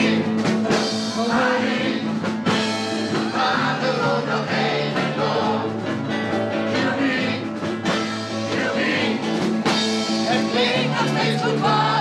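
A large mixed amateur choir singing a blues song in unison, backed by instruments with a steady bass line.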